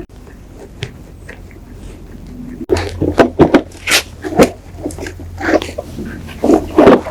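Irregular handling noises from hands-on repair work: sharp clicks and knocks with scraping, coming thick and loud from about three seconds in over a steady low hum.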